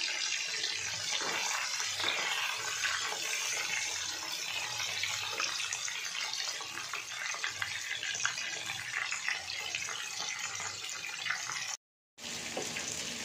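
Chicken pakoras deep-frying in hot oil: a steady sizzle with fine crackling. It cuts out briefly near the end.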